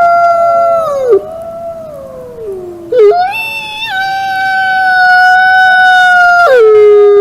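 Wolves howling, two or more voices overlapping in long held howls. One howl slides down and fades about a second in, a new one rises in about three seconds in and holds, then drops to a lower steady pitch near the end.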